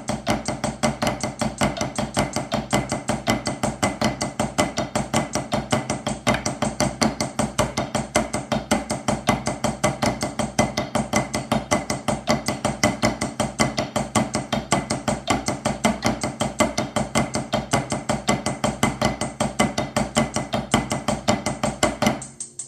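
Drumsticks playing Swiss Army triplets as a steady 16th-note pattern at 80 BPM, about five strokes a second, right-right-left sticking with flams. The playing stops near the end.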